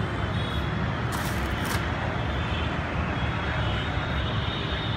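Steady low rumbling outdoor background noise, with a brief hiss about a second in.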